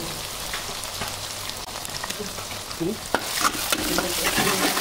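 Fish, greens and onion sizzling in hot oil in a wide metal pan while a spatula stirs them, scraping and clicking against the pan. The stirring grows busier and louder over the last second and a half.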